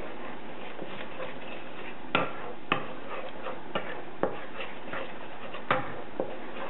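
A spoon stirring and scraping scrambling eggs fast in a non-stick pot, knocking sharply against the pan several times at uneven intervals over a steady hiss.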